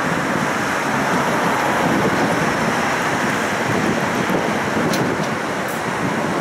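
Tram running along its tracks, heard from inside the car: a steady rumble of wheels on rails and running gear, with a few faint clicks about five seconds in.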